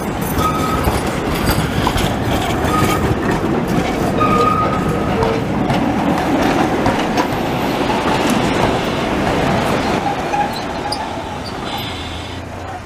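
Trams running past close by on street track: a steady rumble of steel wheels on the rails with clicks over rail joints and several short, high wheel squeals in the first few seconds. The sound fades away near the end as the older articulated tram moves off.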